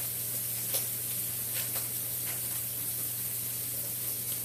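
Ground sausage sizzling in a frying pan on low heat: a steady high hiss with a few faint crackles.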